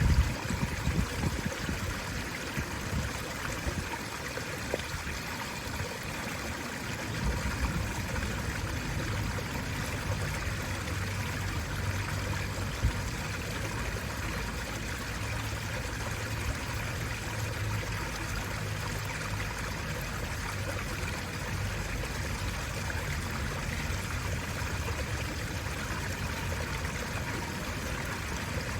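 Water running steadily through a park water fixture, a continuous trickling flow. A low rumble sits underneath, and there are a few brief bumps near the start.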